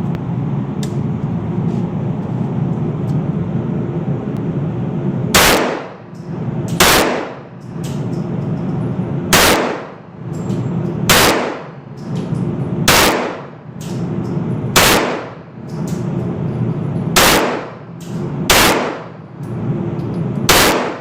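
Gunshots fired one at a time: nine single shots starting about five seconds in, roughly one and a half to two and a half seconds apart, over a steady low rumble.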